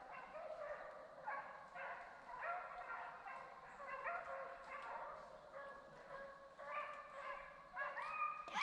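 A pack of deer hounds baying on the chase, several dogs' drawn-out bawls overlapping in a steady run, louder near the end.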